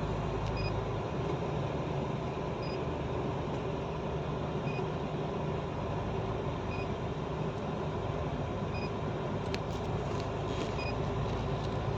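Steady engine and road noise inside a moving truck's cab, with a short faint electronic beep repeating about every two seconds.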